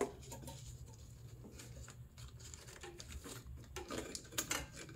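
Faint clicks and rustles of hands working the EVAP purge solenoid and its rubber hoses loose in the engine bay, with a few sharper clicks about four seconds in, over a low steady hum.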